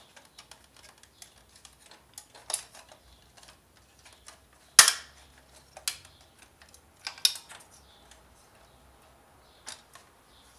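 Scattered clicks and knocks of plastic housing parts and wiring of a Panasonic PT-AE700E projector being handled and fitted during reassembly, the loudest about five seconds in.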